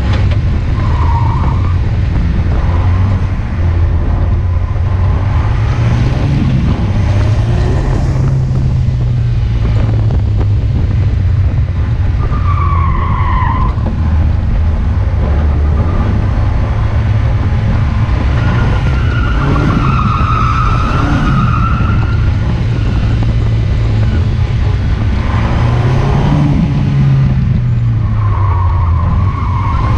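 KTM X-Bow's turbocharged four-cylinder engine heard on board the open-cockpit car, revving up and down as it accelerates and lifts between corners. The tyres squeal briefly through several corners: about a second in, with a falling squeal around a third of the way through, a longer one past the middle, and again near the end.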